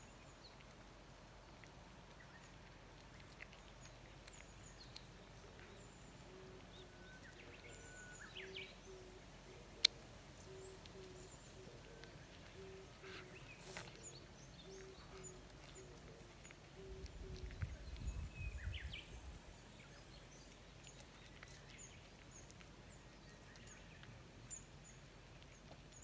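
Faint outdoor ambience: small birds chirping here and there in the distance, and a low call repeated at an even pace for about ten seconds. A single sharp click comes a little before the middle, and a short low rumble about two-thirds of the way through.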